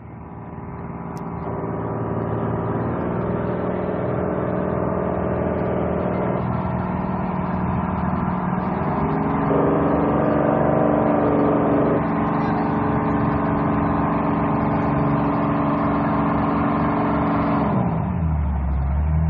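Fishing boat's engine running steadily. Its hum shifts pitch a few times and falls near the end as the engine throttles back.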